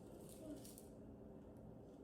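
Near silence: faint room tone, with one soft brief sound about half a second in.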